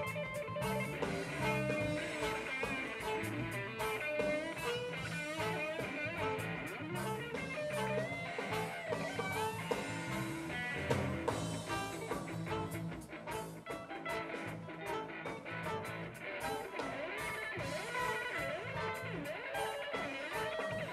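Live band playing Isan folk music: a plucked-string lead with bending notes over bass and a drum kit keeping a steady beat.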